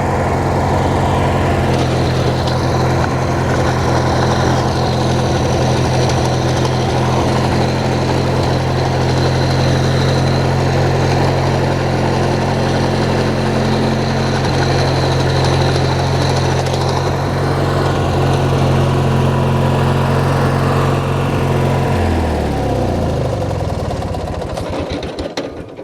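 Hechinger by MTD riding tractor's engine running steadily while the tractor is driven, then winding down in pitch and stopping about three seconds before the end as it is shut off.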